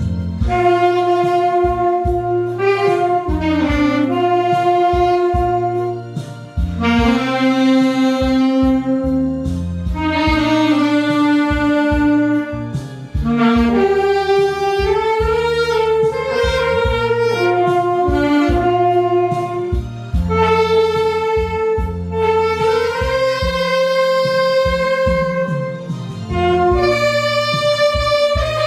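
Solo saxophone playing a slow, sustained song melody with held notes and smooth slides between pitches, over a backing track with bass and a steady beat.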